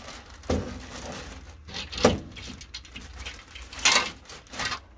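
Clear plastic bag rustling and crinkling in irregular bursts as it is handled, with a few short knocks.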